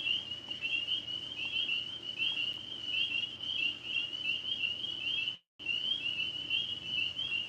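Chorus of tree frogs: a steady, high trilling made of many overlapping short calls. The sound cuts out completely for a split second about five and a half seconds in.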